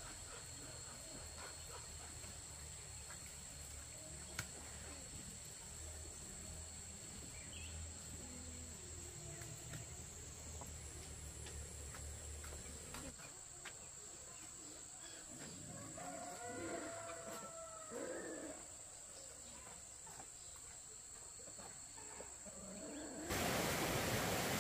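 Quiet farmyard with a low steady hum and faint scattered ticks; about 16 seconds in, a drawn-out animal call of a couple of held tones lasts about two seconds. Near the end the sound switches suddenly to the steady rush of a forest stream.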